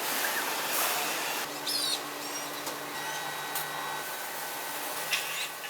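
Steady industrial machinery noise, a hiss with a low hum, broken by a few short clicks.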